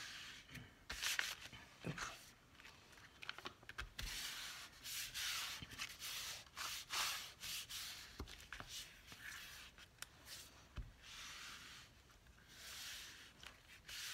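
Hands rubbing and smoothing sheets of paper flat on a journal cover: faint, intermittent papery swishes with a few soft taps.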